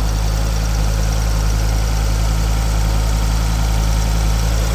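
Car engine idling steadily, run with the radiator cap off to check an overheating engine for a head gasket fault.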